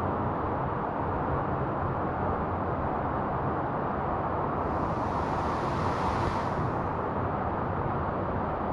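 Steady rushing of a waterfall, an even unbroken noise of falling water.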